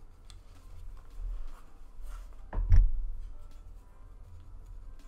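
Faint background music with small clicks of plastic model-kit parts and nippers being handled on a cutting mat. About two and a half seconds in comes a louder knock with two sharp clicks.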